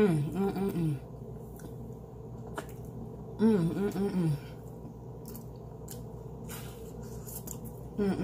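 A woman humming short, wavy closed-mouth 'mm-mm' tunes while eating, three times: at the start, about three and a half seconds in, and briefly near the end. A steady low electrical hum runs underneath.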